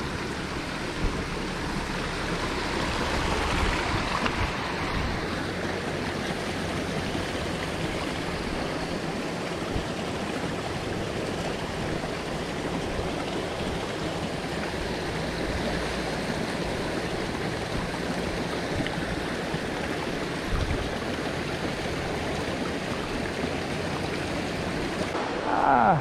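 A small forest creek rushing steadily over rocks.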